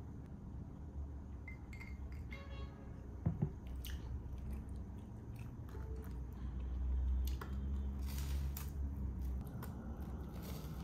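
A drinking glass set down on a desk, with a light ringing clink and two sharp knocks about three seconds in, then crunchy bites into toast later on.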